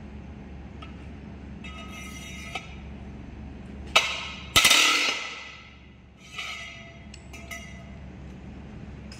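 Steel tools clanking as a damper pulley bolt is worked loose with a long pipe extension on the wrench: two loud metallic clanks about four seconds in, half a second apart, ringing out for over a second, with lighter clinks before and after.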